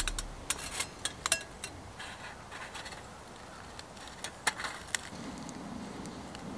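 Thin metal panels of a folding twig stove clicking and clinking as they are slotted together, some clicks ringing briefly, with light scraping in between. A few more sharp clicks come about four and a half to five seconds in.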